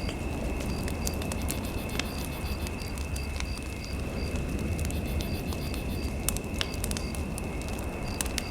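Fireplace fire crackling, with scattered sharp pops over a steady dense hiss. Under it runs a steady high electronic tone, with runs of short high beeps.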